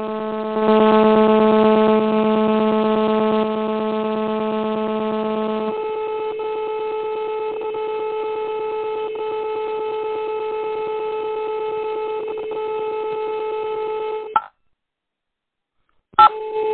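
A steady, buzzing electronic tone on a mobile phone line, with many overtones. Its lowest note drops out about six seconds in; the tone then cuts off suddenly about fourteen seconds in and comes back with a click near the end. The phone's owner takes this recurring line noise for a sign that the call is being eavesdropped on.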